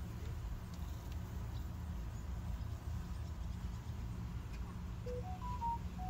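Steady low background rumble. About five seconds in, a few faint short tones step up and then back down in pitch, like a brief melody.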